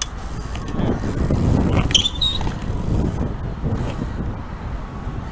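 BMX bike rolling on asphalt: a steady low tyre rumble, with a few light clicks and a short high squeak about two seconds in.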